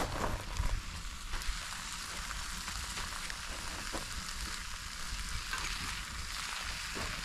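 Food sizzling as it fries, a steady hiss with a few small pops.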